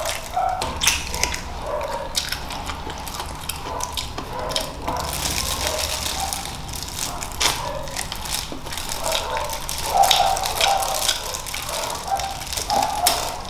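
Close-up eating sounds of someone chewing and gnawing on crunchy boiled chicken feet in Thai-style sauce: a run of irregular short clicks and crackles.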